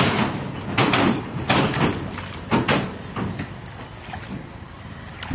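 A hand splashing and churning in shallow muddy water, several splashes over the first three seconds, then fainter sloshing.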